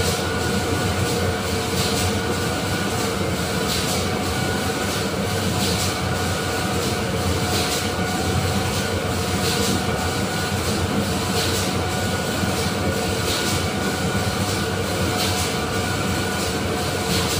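Heavy industrial machinery running steadily, with a constant hum of several tones and a light clank that repeats about every two seconds.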